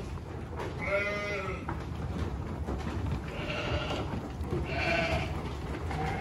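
Icelandic sheep bleating three times, about a second in, at three and a half seconds and near five seconds, over the steady rustle and munching of sheep eating hay.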